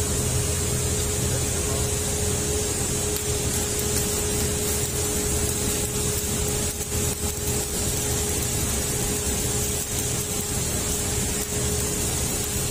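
MIG (wire-feed, gas-shielded) welding arc sizzling steadily as a bead is laid on a steel forklift fork, over a steady hum.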